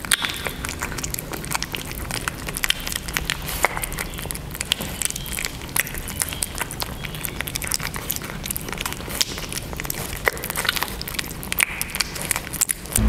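Kittens eating soft mashed food from plates, lapping and chewing: a continuous run of small, irregular clicks and smacks.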